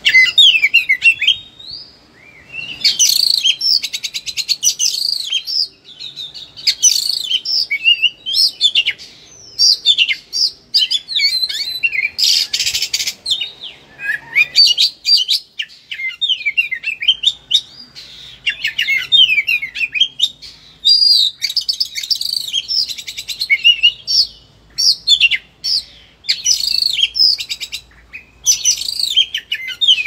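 Oriental magpie-robin (kacer) singing in a fast, varied torrent of whistles, rapid trills and harsh buzzy notes, in phrases broken by short pauses. This is the bird's aggressive 'fighting' song, rattling off its whole repertoire.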